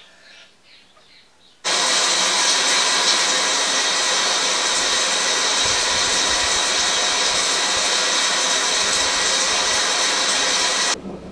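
Heavy rain pouring down, a loud steady hiss that starts abruptly about a second and a half in and cuts off near the end.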